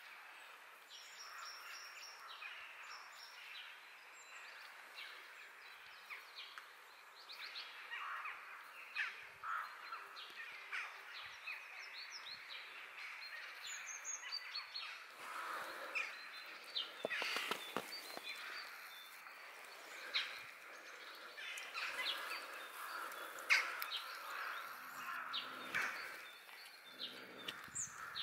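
Faint outdoor background noise, a steady hiss, with birds chirping and calling now and then.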